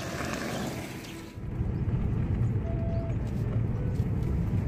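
A Suzuki Ignis hatchback coming along an asphalt road with a hiss of tyres. About a second and a half in, this cuts to the steady low rumble of engine and road noise inside the car's cabin as it drives.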